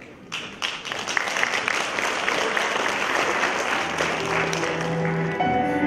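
Audience applauding, with slow music of long held notes coming in about four seconds in and rising above the clapping near the end.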